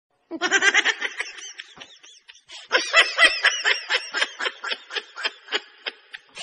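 A person giggling and snickering in a long run of quick, high-pitched laughs.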